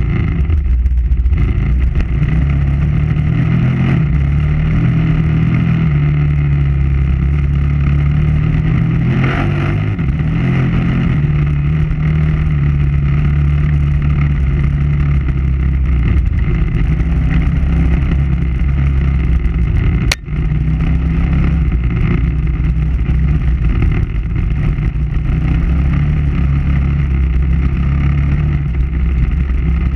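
KTM 990 Adventure R's V-twin engine running steadily under way. A short sharp click and momentary drop in level come about two-thirds of the way through.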